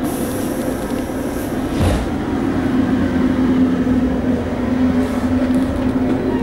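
Steady low hum and rumble inside a compartment passenger coach, with a single knock about two seconds in.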